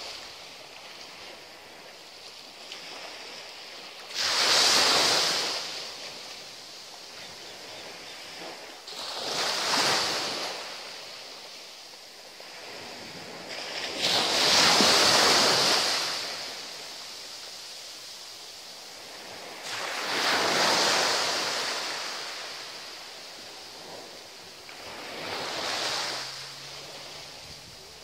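Small North Sea waves breaking and washing up a sandy beach. There are five in turn, about one every five seconds, each a rush of surf that swells and then fades, with a quiet hiss between them.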